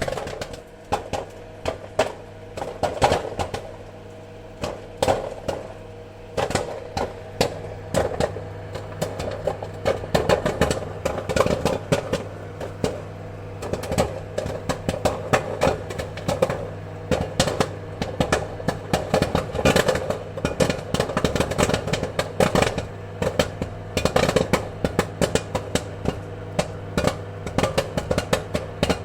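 Popcorn kernels popping in rapid, irregular runs of sharp pops, over a steady low hum.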